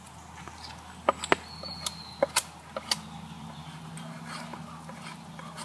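Wood campfire crackling with a run of sharp pops and clicks, the loudest a little after one second in and again around two to three seconds in, while split logs knock as they are stacked around the fire.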